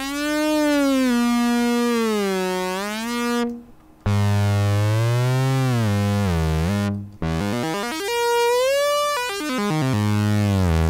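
Eurorack analog synthesizer voice played from the AXE ribbon controller. Three held notes, each bent smoothly up and down in pitch with the pitch-bend pressure points, with short breaks between them.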